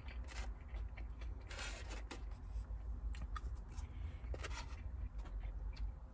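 Close-up eating sounds: chewing, with small clicks and taps of a fork against a takeout container, over a steady low rumble.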